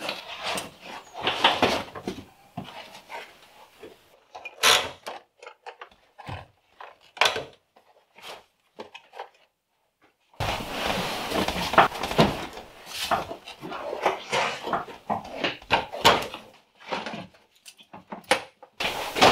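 Irregular knocks, clicks and rustling of car interior parts being handled and pulled out: a seat, carpet and plastic trim panels knocking and scraping against the body and floor.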